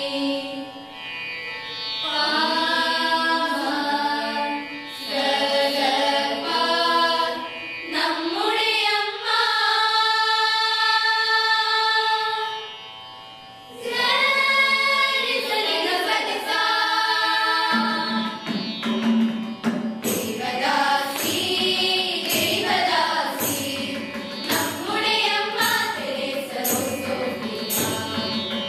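A group of girls singing a song together, with long held notes. About 18 seconds in, tabla and a small hand drum join with a steady beat under the voices.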